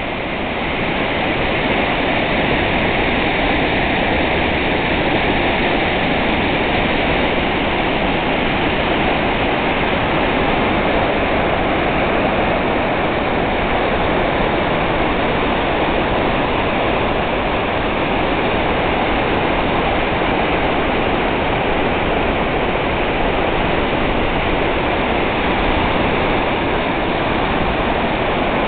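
River waterfall in flood, about a foot above flood stage, pouring into churning whitewater: a loud, steady rush of falling water that swells slightly in the first second or two and then holds.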